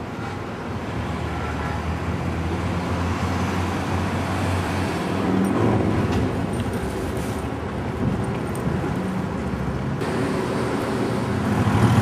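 Street traffic: cars passing in a steady rumble that grows louder near the end.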